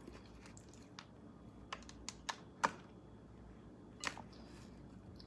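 Someone chewing food with the mouth close to the microphone: about six short, crisp crunches and mouth clicks spread irregularly, the loudest a little under three seconds in.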